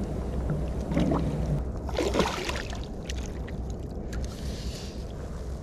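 Water splashing as a hooked largemouth bass thrashes at the surface and is scooped into a landing net, loudest about two seconds in, over a steady low rumble.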